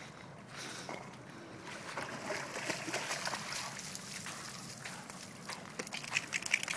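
A dog splashing and sloshing through shallow lake water as it wades ashore with a stick in its mouth, with a burst of quick splattering near the end as it comes up onto the muddy bank dripping wet.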